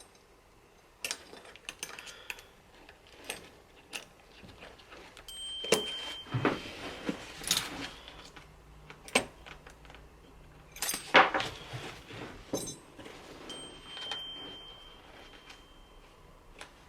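Metal clinks, clicks and knocks at irregular intervals from the clamp hardware of a tree-climbing saddle being handled and fitted together.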